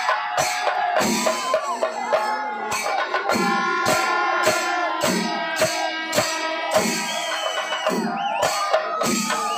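Background music: a steady percussion beat of just under two strikes a second under a melody line.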